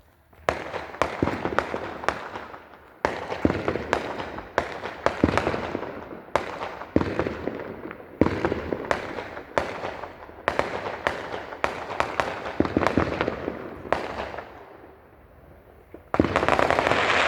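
Fireworks going off in quick succession: dozens of sharp bangs with crackling between them, easing off about three-quarters of the way through, then a loud burst of dense crackling near the end.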